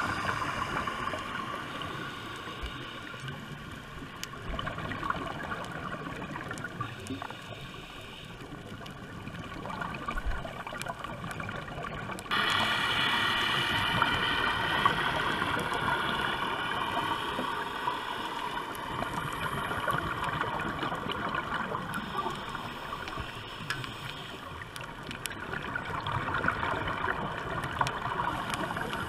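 Underwater ambience picked up by a diving camera: a steady, muffled wash of water noise with a faint droning hum. It turns abruptly louder and brighter about twelve seconds in.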